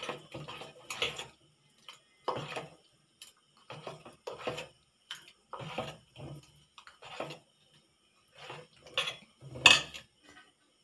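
Steel spoon scraping and clinking against a stainless-steel pot as thick batter is stirred, in short separate strokes. A louder metal clatter comes near the end.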